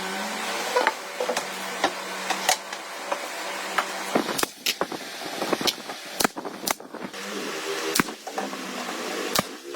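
A small electric motor, likely a handheld power tool, running with a steady hum that cuts out and comes back a few times. Frequent sharp knocks and clicks, as of wood being handled and struck, sound throughout.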